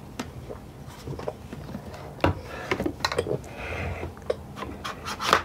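Plastic clicks, knocks and rubbing from a Black + Decker CHV1410L DustBuster hand vac being handled as its sliding extension tube is pulled out, with a louder knock near the end.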